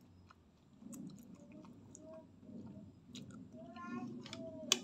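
Close-miked mouth chewing a mouthful of instant fried noodles, with soft wet smacks and scattered small clicks. A single sharp click near the end is the loudest sound.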